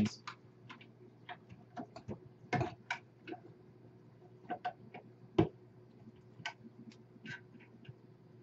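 Scattered small plastic clicks and knocks of tubing being handled and pushed into push-lock fittings on a reverse-osmosis/deionization filter unit, with a couple of louder knocks about two and a half and five and a half seconds in.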